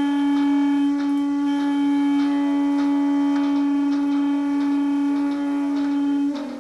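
Soundtrack music: one long, steady note from a wind instrument, held for about six seconds, which gives way near the end to a lower, wavering note.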